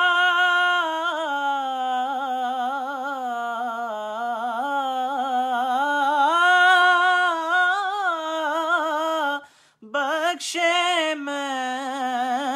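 A man singing a devotional kalam unaccompanied, drawing out long wavering notes with quick melismatic ornaments. There is a brief pause for breath about ten seconds in.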